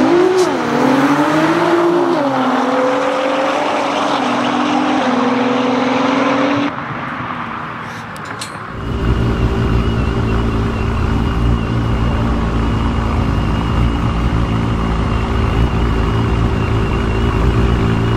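Nissan GT-R R35 twin-turbo V6 engines accelerating hard from a standing start, the pitch rising and dropping as the gears change. After an abrupt cut, a few clicks, then an R35 engine idling with a steady, deep rumble.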